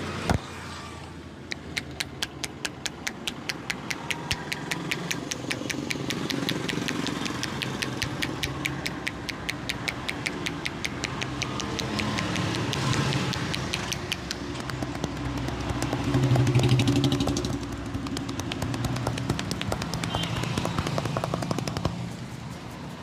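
Rapid, even hand slaps of a percussive head and body massage, several a second, over a steady low street rumble. A single sharp crack sounds about a third of a second in.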